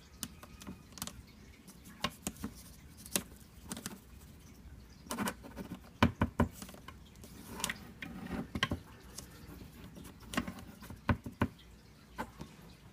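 Irregular light clicks and taps with some soft scrabbling, a few sharper clicks about six and eleven seconds in.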